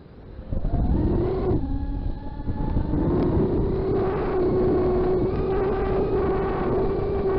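FPV quadcopter motors whining: nearly off at the start, the pitch climbs back about half a second in, sags briefly around two seconds, then holds a steady high whine over a low rumble.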